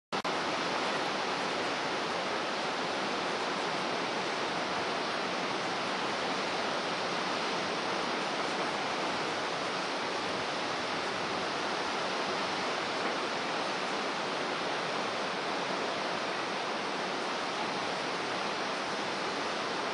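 Rough, storm-driven sea breaking over a rocky shore: a steady, unbroken rush of surf and churning white water.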